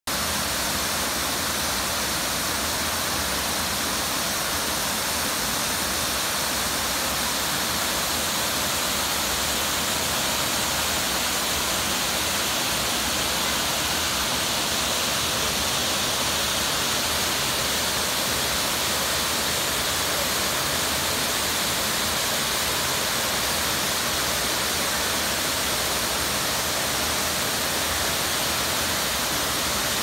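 Nabegataki waterfall, a wide curtain of water falling into its plunge pool, making a steady, unbroken rush.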